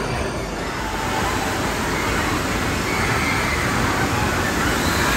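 Steady rush of water cascading and splashing as the giant tipping bucket on an indoor water-park play structure empties, growing slightly louder toward the end.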